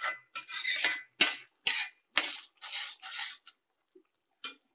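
A steel ladle stirring thick, wet gravy in a metal kadai. It scrapes against the pan in short strokes about twice a second, with a few sharp metal knocks, then stops.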